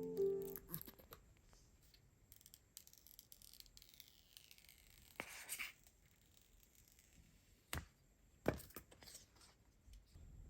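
Quiet packaging sounds: paper tearing for a few seconds, then a few sharp clicks and taps of a box and its contents being handled.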